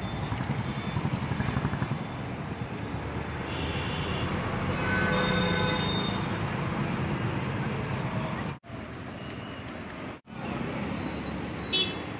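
Steady roadside traffic rumble that swells for a couple of seconds midway with a faint high squeal, broken by two brief dropouts, with a short sharp sound near the end.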